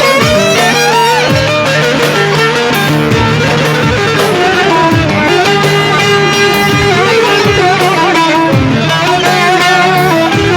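Instrumental break of a Turkish folk song: a violin carries the melody over plucked strings and a steady low drone, with no singing.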